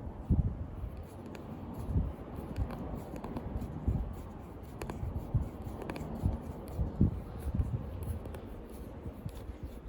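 Hands screwing the plastic applicator of a windscreen chip repair kit into its base on the glass: irregular rubbing, light clicks and dull knocks from the threads and handling.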